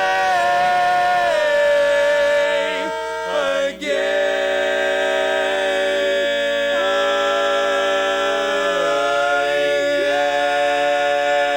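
Barbershop quartet singing a cappella, holding long sustained close-harmony chords on a drawn-out ballad phrase. The chord changes about four seconds in, and the lowest voice slides down to a new note around nine seconds in.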